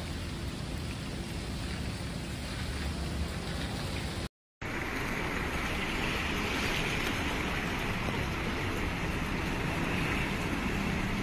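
Heavy rain falling on a flooded paved surface, a steady pattering hiss. After a brief cut about four seconds in, floodwater flows through a street as a steady, slightly louder rushing noise.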